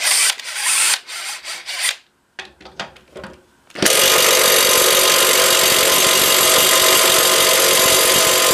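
Clattering and clicks of a socket being fitted, then from about four seconds in a cordless drill with a socket on a rusted lawnmower blade bolt, running steadily at full speed; the bolt does not come loose.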